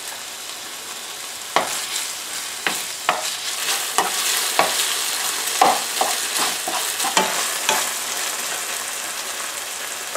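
Crumbled sausage and garlic sizzling steadily in hot oil in a frying pan, while a wooden spoon stirs them. The spoon knocks and scrapes against the pan over the first several seconds.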